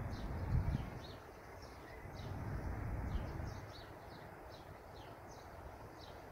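Small birds chirping continuously, many short high chirps several times a second, with two spells of low rumbling noise, the louder about half a second in and another around two to three seconds in.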